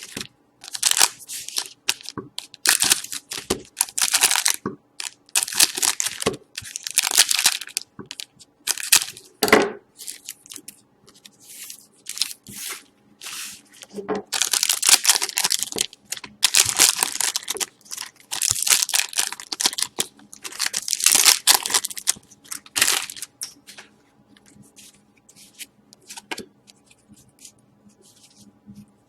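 Hockey card pack wrappers being torn open and crinkled by hand: a run of short, bright tearing rustles with brief gaps, thinning to softer, sparser rustling near the end.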